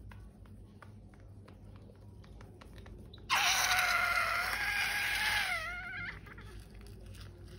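Air rushing out of a balloon's neck: a sudden loud hiss with a squealing tone that lasts about two and a half seconds and wavers upward near the end before fading. Faint handling ticks come before it.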